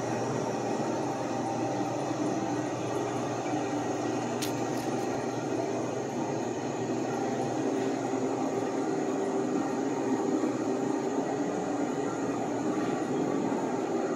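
Steady mechanical rushing noise with a constant hum under it, and one short click about four and a half seconds in.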